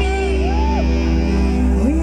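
Live band music: steady held bass and chord notes under a melody line that slides up and down in pitch.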